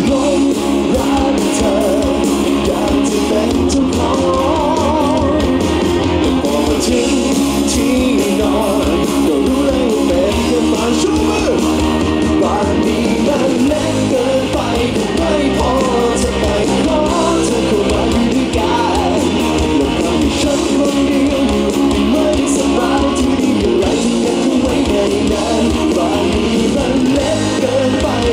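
Live rock song: a man singing lead while strumming an acoustic guitar, with a band's drums behind him.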